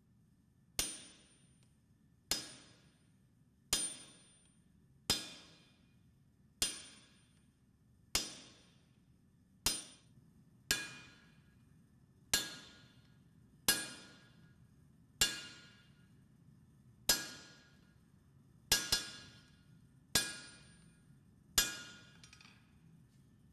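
Blacksmith's hammer striking steel, about fifteen single blows at a slow, steady pace of roughly one every one and a half seconds, each with a bright metallic ring that dies away before the next.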